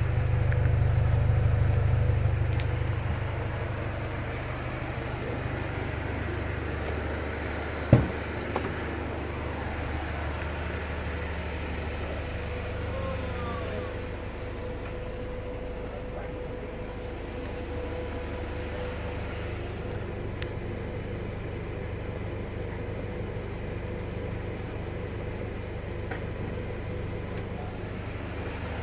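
Steady low rumble of a vehicle engine running, louder for the first few seconds and then even, with one sharp knock about eight seconds in.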